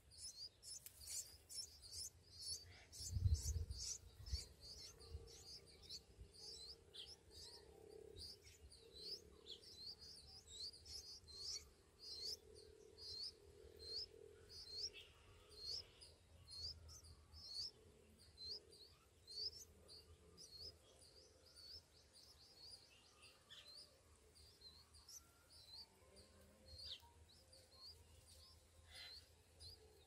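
Songbird nestlings begging in the nest: a long, steady run of short, high, thin chirps, about four a second at first, slowing to about two a second. A single low thump about three seconds in.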